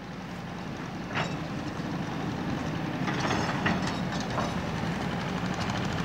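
A steady engine hum fading in, with a few sharp clicks, one about a second in and a cluster around three to four seconds in.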